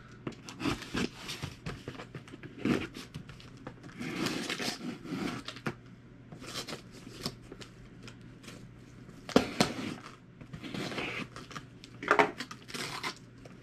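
Box cutter slicing through packing tape on a cardboard box, with irregular scraping and rustling of the cardboard and tape. A couple of sharp knocks stand out, one about nine seconds in and another near the end.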